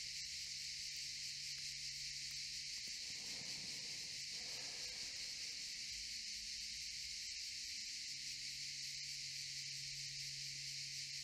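Cicadas singing in a steady, continuous high-pitched chorus.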